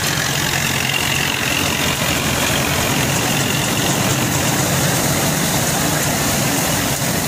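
Panesar TMC-800 tractor-driven mini combine harvester running as it harvests. A dense, even machine noise from the tractor engine and the belt-driven threshing unit, with a steady low engine hum underneath.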